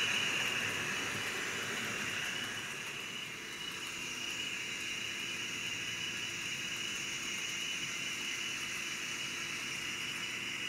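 N scale model passenger train running on track: a steady hiss of small metal wheels rolling on the rails, loudest in the first couple of seconds, then settling to an even, slightly softer level.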